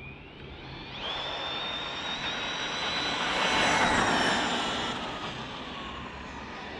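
Tekno ET48 2.0 RC truggy's brushless motor (Castle 1520 1650kv on a Mamba Monster X) whining at full throttle on a 4S battery during a speed pass of about 81 km/h. The pitch shoots up as it launches about a second in, holds high as it passes, loudest around the middle, and then fades as it runs away down the street.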